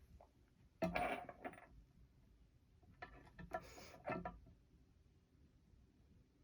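Small metal objects clinking and rattling on a workbench in two short clusters, about a second in and again around three to four seconds in, as soldering tools and parts are handled.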